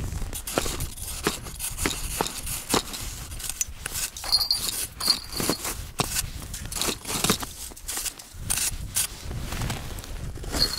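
Ice scoop digging and scraping through crusted snow and ice around an ice-fishing hole: a run of irregular crunches and scrapes, several strokes a second.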